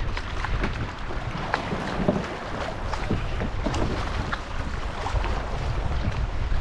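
Water splashing and slapping around a kayak as a school of bull red drum break the surface alongside it, many short irregular splashes over a low rumble of wind on the microphone.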